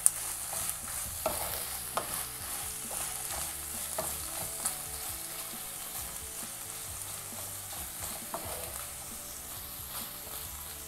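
Wooden spatula stirring and scraping a thick chicken masala around a nonstick kadai, with a steady sizzle from the hot pan. The spatula knocks against the pan now and then.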